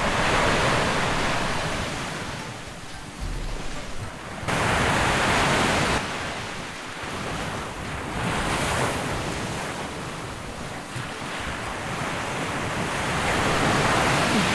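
Surf breaking and washing up a sandy beach, swelling and fading several times, with wind buffeting the microphone.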